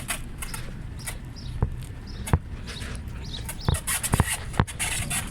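Footsteps and scuffing of a person and a large dog walking, with a handful of irregular sharp clicks and knocks over a steady low rumble.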